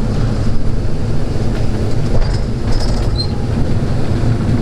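Electric buggy rolling along, a steady low rattling rumble, with a brief high squeak about three seconds in.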